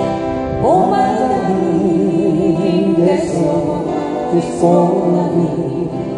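Acoustic guitars strumming with singing. A voice swoops up about a second in, then holds long notes with vibrato, with no clear words.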